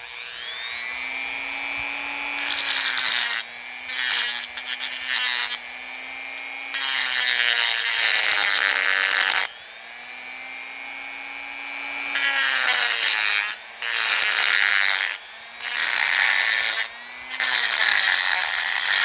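Dremel rotary tool with a stone grinding bit spinning up to a steady whine, then grinding against a metal lawn mower handle bracket in repeated short passes to enlarge a bolt hole.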